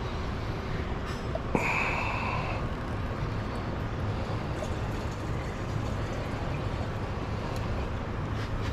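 Steady low hum with a few light clicks and knocks, and a sharp click about a second and a half in followed by a brief high squeak.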